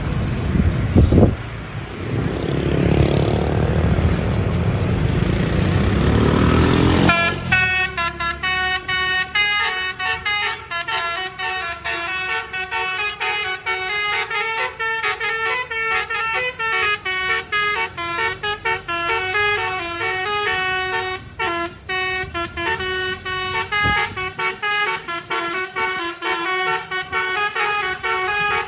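Bus 'telolet' musical horn, a Basuri multi-tone horn, playing a fast tune of short stepped notes that starts about seven seconds in and keeps going. Before it there is vehicle engine and road noise, with a sharp thump about a second in.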